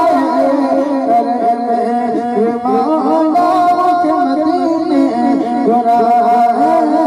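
A man singing a slow, ornamented Islamic devotional melody into a microphone, his voice amplified and wavering through long melodic runs.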